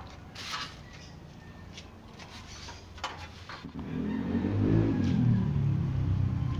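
A few light scrapes of a broom and plastic dustpan, then about four seconds in a motor vehicle's engine gets much louder, its pitch falling, and settles into a steady low running hum.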